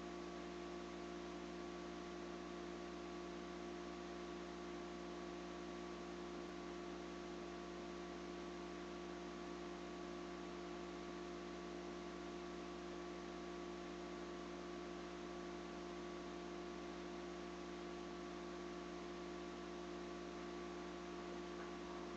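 Faint, steady electrical hum over an even hiss, unchanging throughout.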